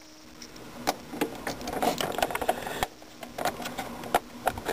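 Irregular clicks, taps and rattles of hands handling a dot matrix printer's plastic parts and cables.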